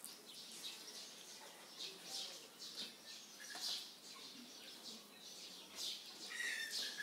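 Faint, scattered bird chirps, short and high, with a brief held note about six seconds in.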